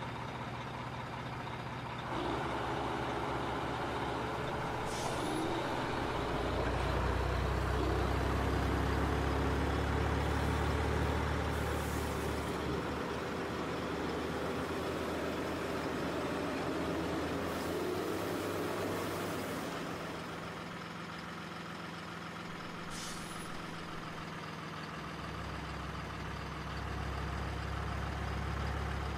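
Heavy truck engine sound, a steady low diesel drone that swells about six seconds in and eases off later, with short air-brake hisses a few times.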